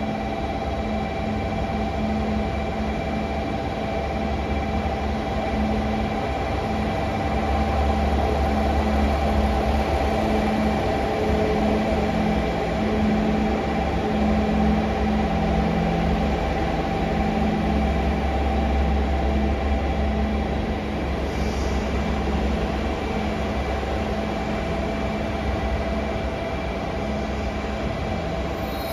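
KiHa 47 diesel railcar engine running at a station platform: a steady low diesel drone with a fixed hum, growing louder twice.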